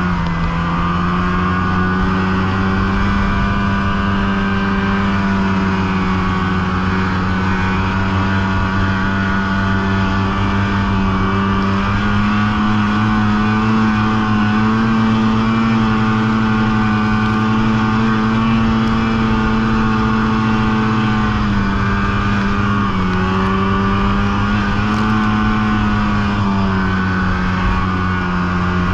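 Polaris snowmobile engine running under steady throttle, its pitch holding fairly level with small rises and falls, dipping briefly about three-quarters of the way through before picking up again.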